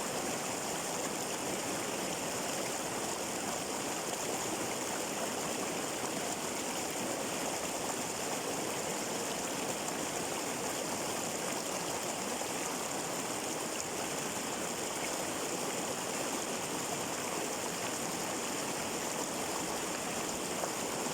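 Flowing water running steadily and evenly, with no breaks or changes.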